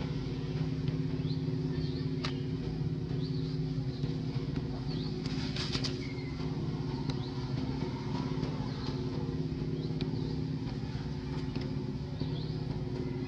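A steady low engine-like hum that does not change, with a few faint, short, high falling chirps now and then and a brief patch of rapid clicks about halfway through.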